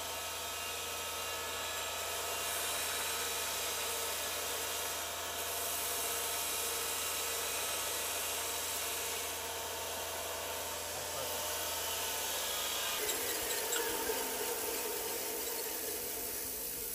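Belt sander running with a bar ground against the belt under an air-driven coolant mist sprayer. The motor's low hum stops about 13 seconds in, leaving the steady hiss of the sprayer's air.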